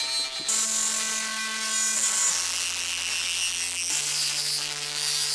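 Synthesizer playing three held low notes in turn, each about a second and a half long, over a rough, gritty hiss, the whole sounding incredibly broken.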